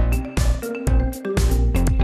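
Instrumental music with a steady beat of deep bass hits and sustained melodic tones: the backing track of a TV channel's on-air countdown clock.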